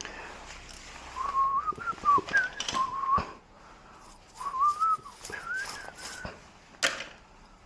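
A person whistling a wavering tune in two short phrases, with scattered small clicks and knocks and one sharp click near the end.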